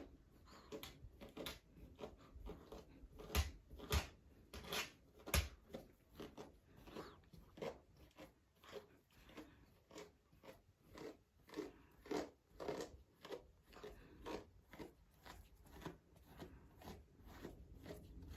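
A grooming brush drawn through a dog's fur in short, scratchy strokes, roughly two a second, a few of them louder.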